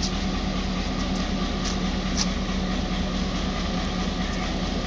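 Pakistan Railways diesel-electric locomotive idling at the platform: a steady low engine hum with a constant drone.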